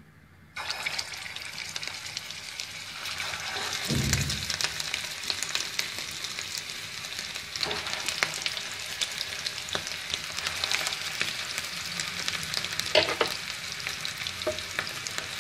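Hot oil sizzling and crackling as egg-stuffed minced-meat kofte are laid into a shallow frying pan. The sizzle starts suddenly about half a second in, with a dull thump about four seconds in.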